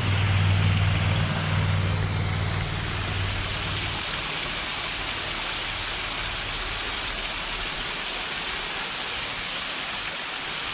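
Small woodland stream splashing and trickling over rocks, a steady rushing sound. A low steady hum runs under it for the first four seconds, then stops.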